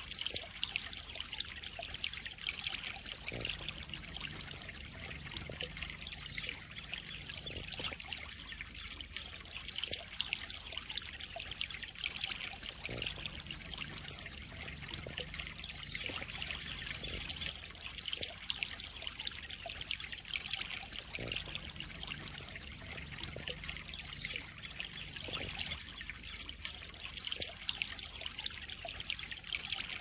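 Water trickling and splashing steadily into a koi pond: an even, unbroken trickle with small drips and splashes scattered through it.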